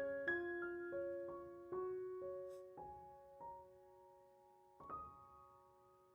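Background piano music: single notes struck one after another, each ringing out, slowing to a last held note about five seconds in.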